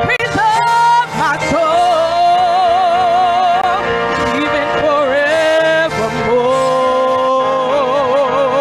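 A woman singing a gospel solo into a handheld microphone, holding long notes with a wide vibrato and sliding between pitches, over steady held chords from an accompanying instrument.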